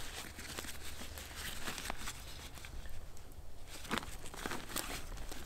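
Rustling and crinkling of things being handled, with scattered small clicks and taps and a couple of sharper clicks near the end.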